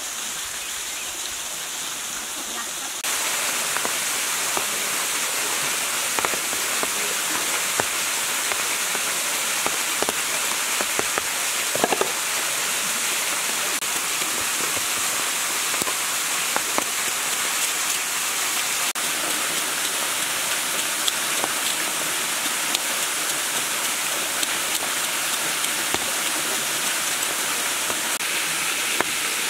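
Steady rush of falling water, louder from about three seconds in, with scattered light clicks and scrapes of a cleaver scaling a large snakehead fish on a wooden cutting board.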